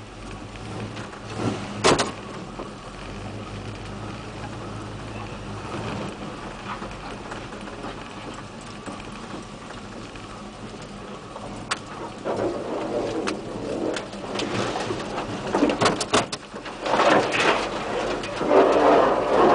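Lifted 4x4 pickup truck heard from inside the cab, its engine running low and steady as it crawls along a rough dirt trail. Sharp knocks and rattles from the truck's body come about two seconds in, then get louder and more frequent over the last several seconds as it bumps over rougher ground.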